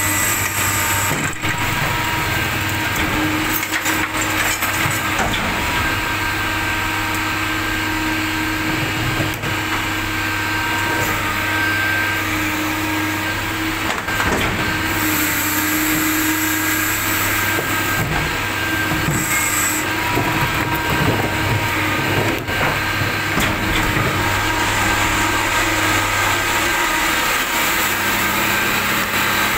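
Garbage lorry's engine running steadily: a constant low hum with a steady higher whine over it, and a few sharp knocks or rattles along the way.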